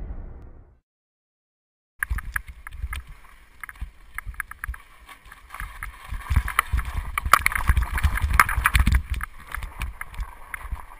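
The booming tail of an intro sting dies away in the first second. After about a second of silence comes action-camera audio of mountain biking down a dirt trail: wind on the microphone, tyres on loose dirt, and the bike's rattles and knocks, busiest in the middle.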